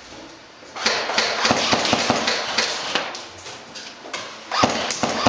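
Airsoft MP5 SD replica firing, a fast clatter of sharp mechanical clicks that starts about a second in, with a few louder single shots near the end.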